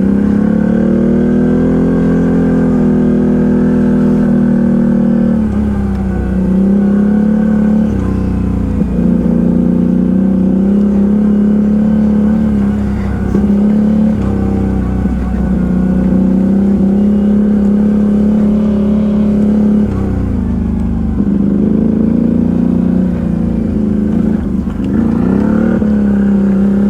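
ATV engine running under way, its pitch dropping and climbing again and again with the throttle.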